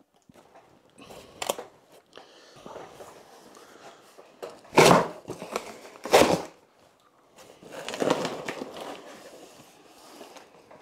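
Cardboard box and styrofoam packing being handled and pulled at: irregular rustling and crinkling, with two louder short bursts about five and six seconds in.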